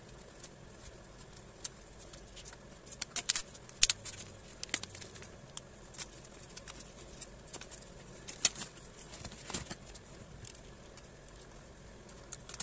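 A parcel of books being unwrapped by hand: irregular crinkling and rustling of the wrapping with sharp snaps, busiest a few seconds in.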